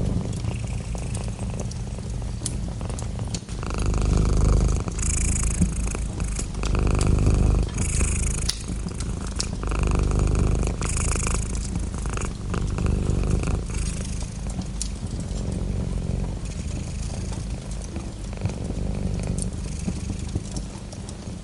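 Domestic cat purring close up, swelling and easing about every three seconds with its breathing, with faint scattered clicks over it.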